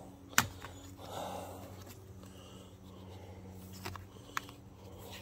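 Rubber door weatherstrip being pulled back by hand near a car door hinge: a sharp click about half a second in, then soft rubbing and two light ticks near the end.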